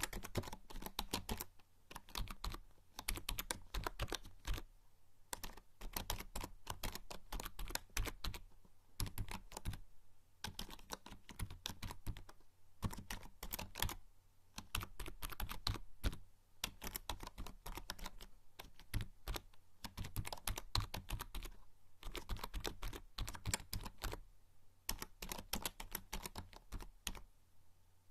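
Typing on a membrane computer keyboard: fast runs of soft key clicks in bursts of a few seconds, broken by short pauses.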